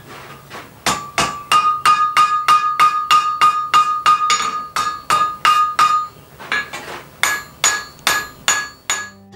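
Blacksmith's hand hammer striking a hot iron rod on an anvil as a fire poker is forged, about three blows a second, each with a clear ringing tone. The blows break off briefly about six seconds in, then resume for a second run.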